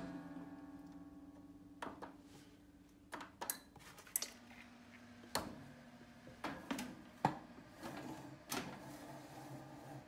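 Scattered clicks and knocks, about nine in all, as a metal baking tray is handled and pushed into a countertop toaster oven, over a faint steady hum.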